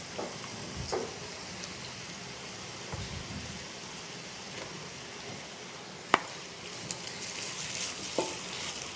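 Chicken fried rice sizzling in a hot pot as it is stirred and mixed with a spatula, the spatula scraping and clicking against the metal now and then, once sharply about six seconds in.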